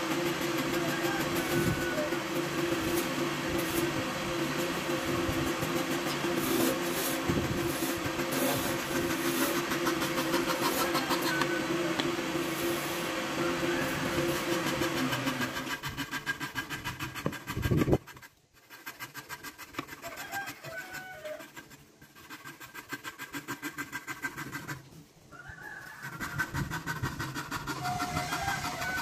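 A woodworking power tool's electric motor runs with a steady hum. About two-thirds of the way through it cuts off abruptly, then runs again in short spurts.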